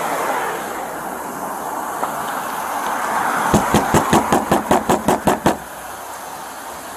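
Rapid hard knocking on a pickup truck's driver-side window, about a dozen sharp raps in two seconds starting about halfway through, over a steady hum of traffic.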